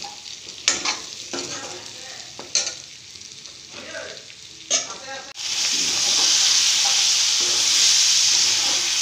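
Steel ladle scraping and knocking against a metal kadai as pork and potato pieces are stirred; a little past halfway a loud, steady sizzle starts as the pork fries in its own rendered fat, no oil having been added.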